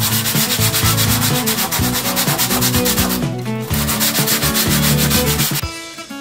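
Wood being sanded in quick, even rasping strokes, pausing briefly about three seconds in and stopping near the end, over background guitar music.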